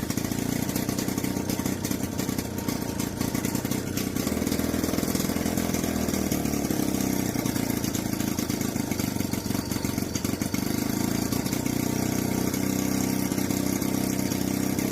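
1940s Villiers two-stroke lawnmower engine running steadily, driving a lathe. Its speed shifts about five seconds in, then settles.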